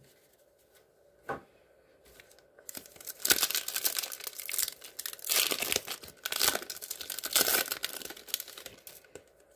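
The wrapper of a Score football trading card pack being torn open and crinkled by hand: a dense, uneven crackling that starts about two and a half seconds in and runs until shortly before the end.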